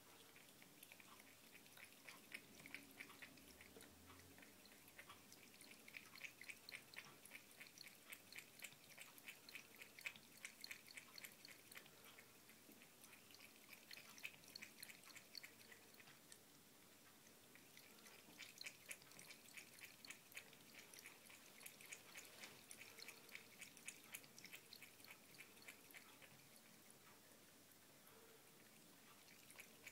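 A cat lapping water from a bucket: quick, regular laps in several bouts, with short pauses between them.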